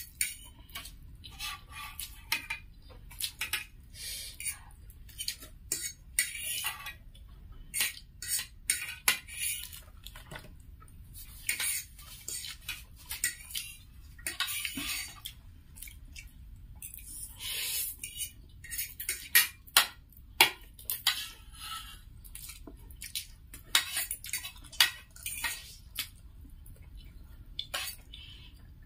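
Metal forks and spoons clinking and scraping irregularly against plastic plates as two people eat spicy instant noodles, with short slurps of noodles between the clicks.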